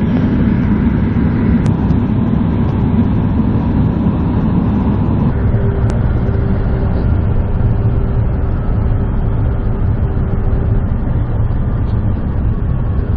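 Steady drone inside the cabin of a Bombardier Q400 turboprop flying on approach with one engine shut down: the remaining engine and propeller running with airflow noise. A faint steady tone rises over it partway through.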